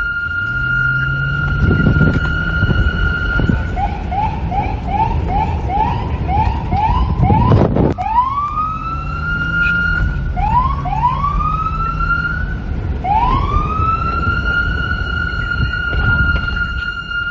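Police car siren: a steady high tone, then a fast yelp of short rising whoops, about two and a half a second, then slower rising wails that climb back up and hold the high tone. A low rumble of wind runs underneath, with a single sharp knock about halfway through.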